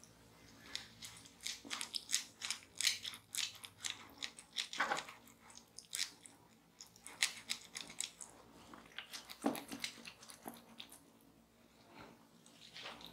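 Wet crackling and clicking of fruit pulp being rubbed over skin by hands: a dense run of sharp crackles that thins out near the end.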